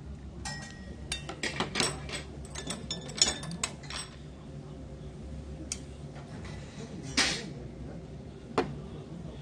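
Metal tongs and a ladle clinking and scraping against stainless-steel bowls while serving braised pork ribs: a quick run of clatters over the first four seconds, then a few single clinks.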